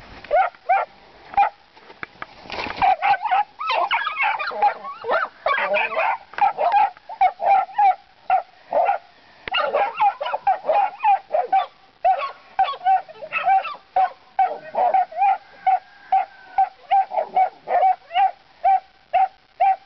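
Catahoula puppies barking at hogs through a fence: short, high, honking yaps repeating about twice a second. From about two to six seconds in, the barking turns into a denser stretch of overlapping calls.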